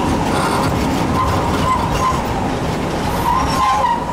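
Hiroden 100-type tram car 101, a Taisho-style streetcar, running along street track, heard from inside the wooden car: a steady rumble of wheels on rail, with a faint wavering whine above it.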